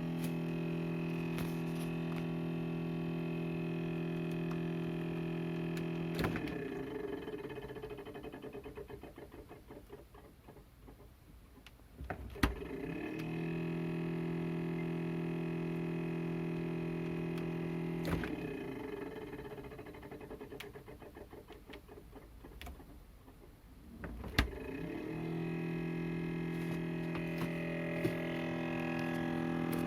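Failing household refrigerator's compressor cycling in a loud abnormal hum: it runs steadily for about six seconds, winds down with a wavering rattle, then a sharp click and it starts again, twice over. The repeated stopping and restarting is the sign of a broken refrigerator that can no longer keep its freezer cold.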